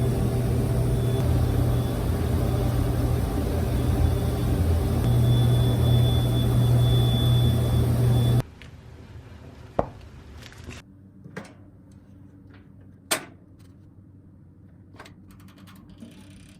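Washing machine running with a steady rumble and low hum and a faint high whine. The sound cuts off abruptly about eight seconds in, leaving a quiet room with a few sharp clicks and knocks.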